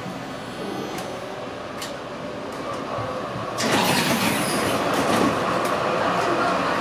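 Z3-class tram running, heard from inside the passenger saloon: a few sharp wheel clicks, then about three and a half seconds in the running noise turns suddenly louder and harsher and stays that way.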